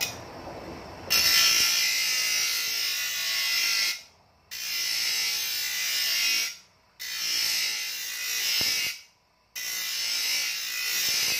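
Bench grinder wheel grinding the edge of a shovel blade to sharpen it: a harsh hissing scrape in four passes of two to three seconds each, with short quiet gaps as the blade is lifted off the wheel.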